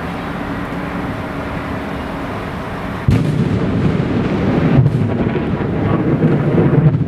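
Explosive thunder from a close lightning strike. It breaks in suddenly about three seconds in, after steady background noise, and goes on as heavy, irregular crackling rumble.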